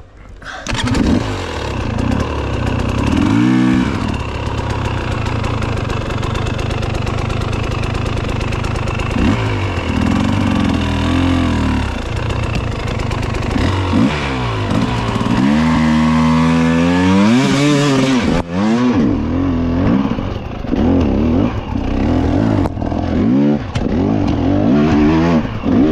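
Off-road dirt bike engine revving hard and backing off again and again, its pitch climbing and dropping with each burst of throttle, loud from about a second in.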